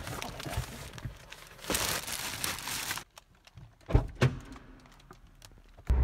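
Rustling and handling noise as a canvas tote bag and the recording phone are moved about in a car. It then goes much quieter, with a couple of short thumps about four seconds in.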